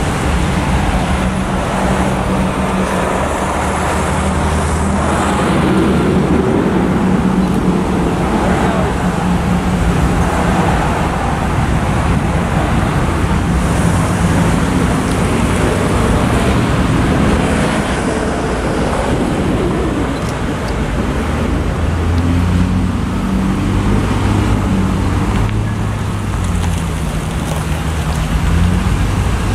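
Vehicle engines and road traffic running under a steady rushing noise, with a low engine hum that shifts in pitch now and then.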